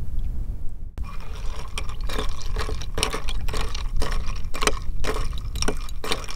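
Metal spoon stirring ice in a cut-glass tumbler, with quick irregular clinks of spoon and ice against the glass starting about a second in.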